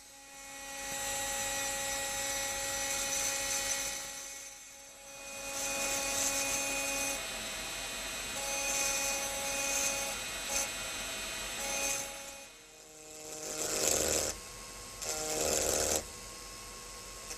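High-speed hand-held engraving drill cutting into an optical crystal perfume bottle: a steady motor whine over a gritty grinding hiss, dropping away briefly a few times and louder near the end.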